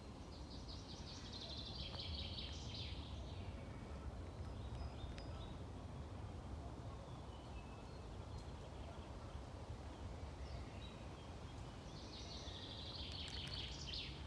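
A small songbird singing twice: each time a fast, high trill of about two seconds ending in a flourish, the first about a second in and the second near the end, over a steady low background rumble.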